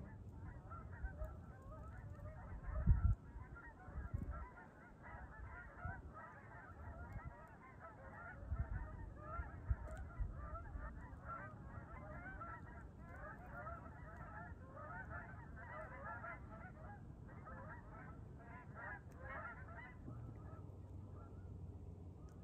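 A flock of geese honking, many short calls overlapping, dying away about two seconds before the end. A low thump about three seconds in, and a smaller one a second later.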